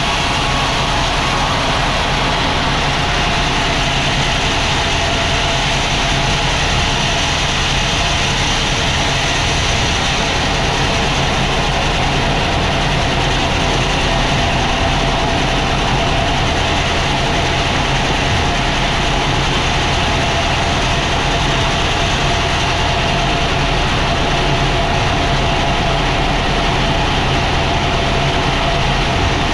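Sawmill machinery running steadily: a loud, even, engine-like drone with a constant tone above it, unchanging throughout.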